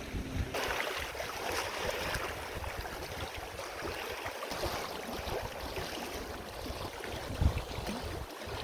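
Small waves of open lake water lapping and splashing irregularly against shoreline rocks, with wind rumbling on the microphone.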